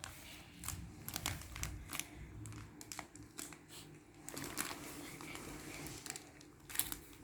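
Powdered-milk packaging being handled and torn open, crinkling and crackling in a string of short rustles.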